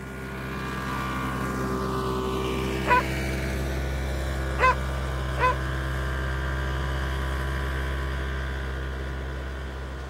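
Snowmobile engine running as a steady drone, rising in over the first second and fading out near the end, with three short high chirps a few seconds in.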